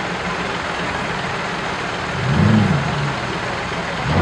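Modified off-road 4x4's engine running over steady background noise, with one short rev about two seconds in that rises and falls in pitch.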